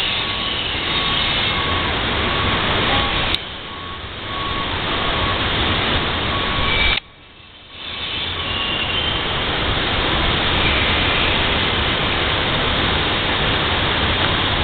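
Steady rushing noise with a beep repeating about twice a second for the first six seconds or so, like a vehicle's reversing alarm. The noise drops away abruptly twice, for about a second each time, about a quarter and about halfway through.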